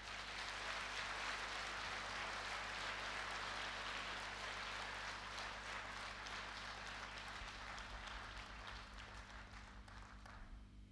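Audience applauding in a theatre after a song, a dense patter of many hands that fades out near the end.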